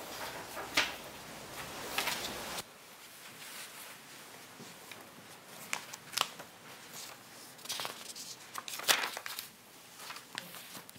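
Rustling and scattered soft clicks of a person moving about and handling things. A faint background hiss drops away abruptly about two and a half seconds in.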